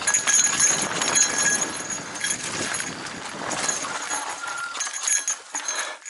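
Mountain bike clattering and rattling over a rough, leaf-strewn dirt trail, with its suspension left locked out, tyres crunching through dry leaves. The rattle eases after about four seconds as the bike slows.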